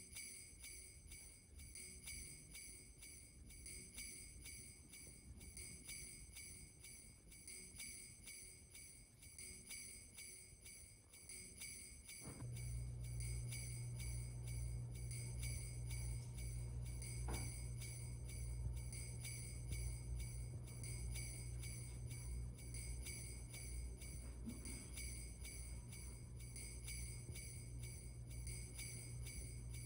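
Sleigh bells shaken in a fast, even rhythm, about three shakes a second. About twelve seconds in, a low steady hum joins underneath and becomes the loudest part.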